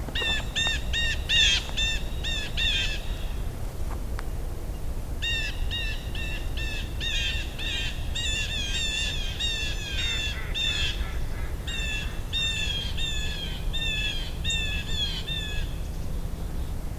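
A bird giving rapid strings of harsh, repeated calls, about three a second, in two bouts: a short one at the start and a longer one beginning about five seconds in. A steady low rumble runs underneath.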